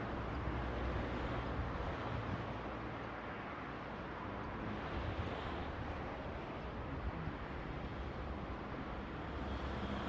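Steady outdoor background noise: an even hiss over a flickering low rumble, with no bird calls standing out.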